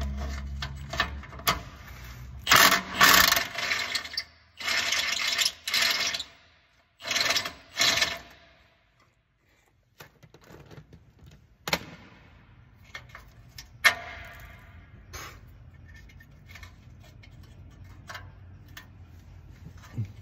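Cordless impact wrench run in several short bursts on a rusty exhaust nut, loud and noisy, over the first eight seconds. After a short pause come a few sharp metallic clanks of tools and parts.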